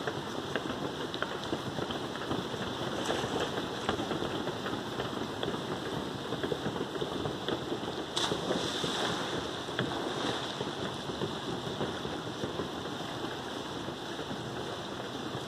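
A steady hiss throughout, and about eight seconds in a sudden splash as a person jumps into a swimming pool, followed by a couple of seconds of washing water.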